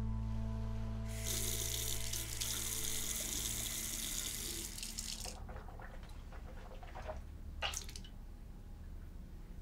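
Faucet running into a bathroom sink, shutting off after about four seconds, followed by a few light splashes at the sink.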